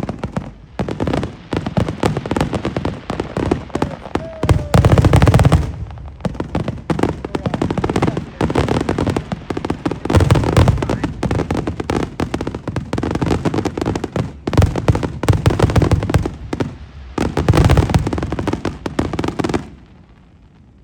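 Fireworks finale: a rapid, continuous barrage of bangs and crackles with several heavier booms, stopping abruptly about twenty seconds in.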